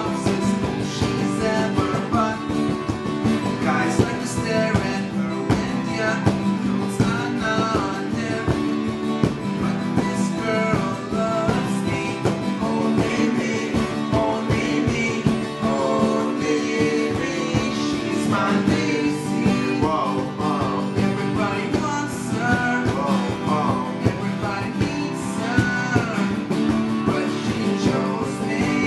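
Two acoustic guitars strummed and picked together, with young men's voices singing over them.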